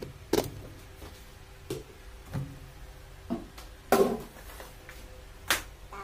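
About six sharp plastic clicks and knocks, the loudest about four seconds in, from handling the detergent and softener dispenser of a Panasonic NA-FS13X7 top-load washing machine.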